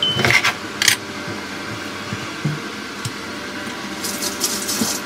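Chef's knife chopping through a corn cob on a bamboo cutting board: two sharp cuts in the first second, then a few lighter knocks and clatter.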